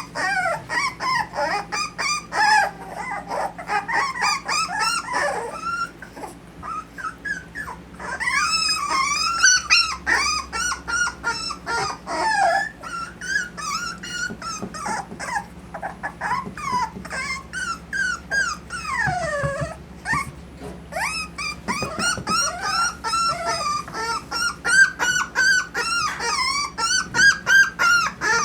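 Miniature dachshund puppies whining and squealing: many short, high-pitched, wavering calls overlapping one another without a break.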